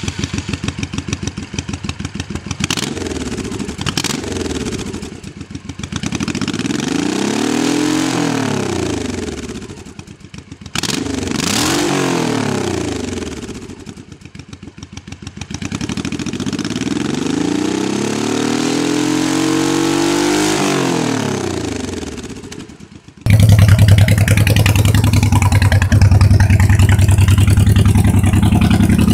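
Honda VT1100 Shadow's V-twin through staggered chrome exhaust pipes, pulsing at idle and then revved on the throttle: a couple of short blips, then three rev-ups that rise and fall, the last held longest. About 23 s in there is an abrupt cut to a louder, steady motorcycle engine run.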